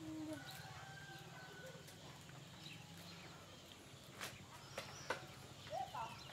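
Split bamboo and cane strips clicking sharply three times as a basket is woven by hand, about four to five seconds in, over faint bird calls.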